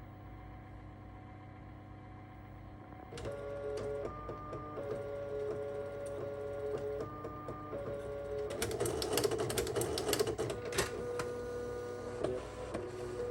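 Apple StyleWriter inkjet printer running a test print with a dried-out ink cartridge. After about three seconds its motors start whining in steady tones that shift in pitch. From about eight seconds in, the print carriage runs with fast clicking and rattling.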